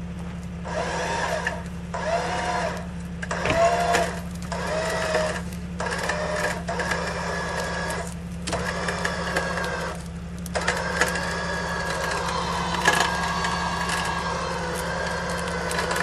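ATV's electric winch whining as it reels in its taut cable under load, dragging a cut tree trunk. The motor runs in short bursts that each rise and fall in pitch, then pulls continuously from about ten seconds in, over a steady low hum.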